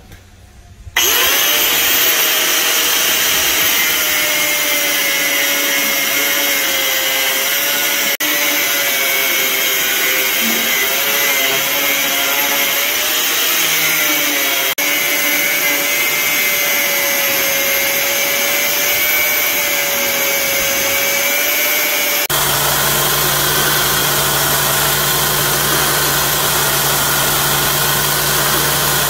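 Angle grinder with a thin cut-off disc running and cutting slots into a steel bar: a loud, steady whine that wavers slightly in pitch over a hiss. About 22 seconds in it gives way to a belt sander running with a lower hum as a small steel piece is ground against the belt.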